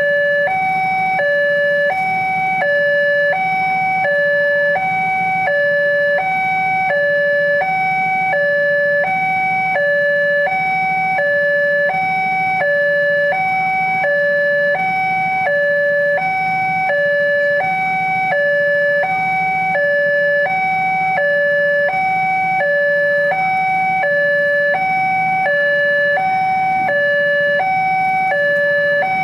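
Railway level-crossing warning alarm sounding from the loudspeaker on the signal post: a loud electronic two-tone signal alternating high and low about once a second, the warning that the barriers are down and a train is approaching. A low hum of waiting motorcycle engines lies underneath.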